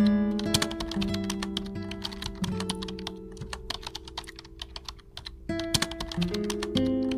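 Rapid computer-keyboard typing clicks, a typing sound effect, over background music of held notes.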